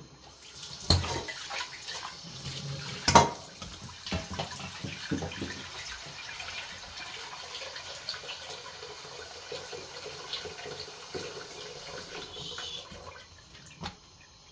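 Tap water running steadily into a stainless steel pot, then cutting off about twelve seconds in. Two sharp knocks come near the start and one more near the end.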